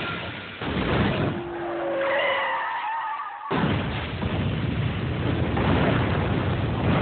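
Car crash sounds: a vehicle skidding with a brief squeal of tyres around two seconds in, then a sudden loud blast about three and a half seconds in that runs on as a dense, steady rushing roar of a fiery crash.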